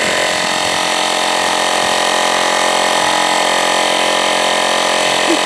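Cordless battery-powered portable tire inflator running steadily while pumping up a tire. It has not yet reached its set pressure, where it shuts off by itself.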